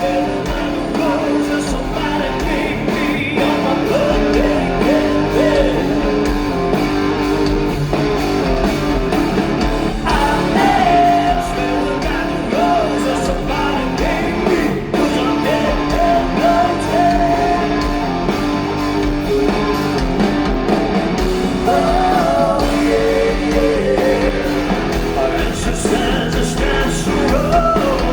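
Live rock band playing through a concert sound system, with electric guitars and a lead vocalist singing over them.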